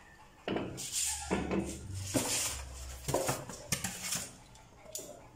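Handling noise from an unboxed small engine and its white foam packing: irregular rustling with clicks and light metallic clunks, starting about half a second in.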